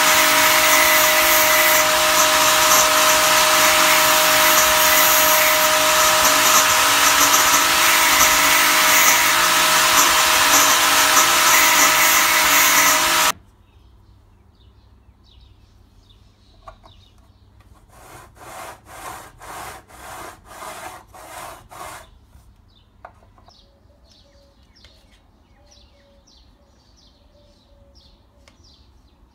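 Electric motor of a saw-blade sharpening jig running, its thin grinding disc grinding the teeth of a circular saw blade with a steady whine and harsh grinding noise. It cuts off suddenly about 13 seconds in. After that, much quieter: a short run of about eight rhythmic scraping strokes, then faint bird chirps.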